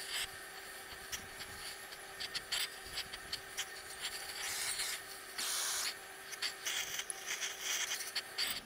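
Oxy-fuel torch flame hissing steadily with irregular crackles as it heats a steel wheel hub to expand it for fitting a bearing race.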